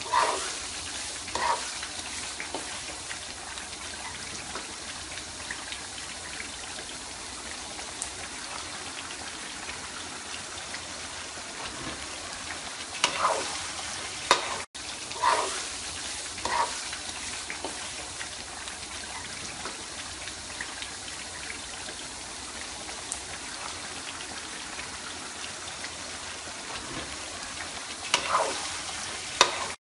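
Red chilies and petai beans sizzling steadily in hot oil in a wok as they are stir-fried, with a few short, louder stirring sounds.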